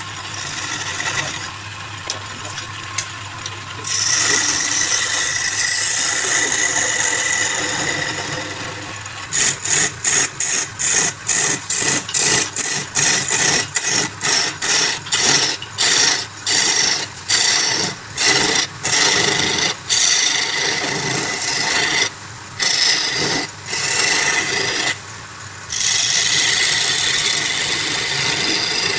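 Wood lathe running with a tool or abrasive held against the spinning wood, giving a rasping scrape. It is steady at first, then from about nine seconds in it comes in short repeated strokes, about two a second, with a couple of brief pauses.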